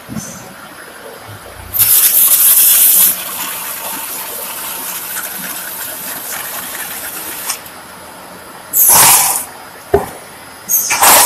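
Wood-flooring packing line machinery hissing in loud bursts of air: a strong burst of about a second, a softer hiss for several seconds after it, then two shorter bursts near the end with a single knock between them.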